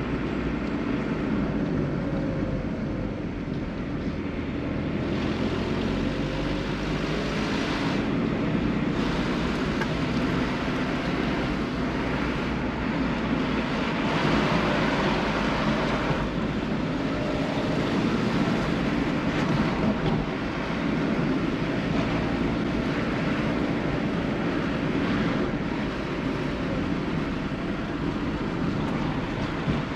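Car being driven on a narrow lane, heard from inside the cabin: steady engine and tyre-on-road noise with small rises and falls.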